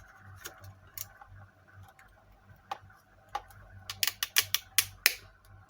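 Handling clicks from the plastic parts of a phone and microphone holder as it is adjusted. A few light clicks, then a quick run of sharp, louder clicks and taps about four to five seconds in.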